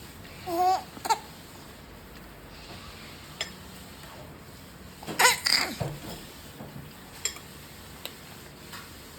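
A four-month-old baby shrieking in short bursts: a brief squeal about half a second in and a louder, high-pitched shriek about five seconds in, with a few faint clicks between.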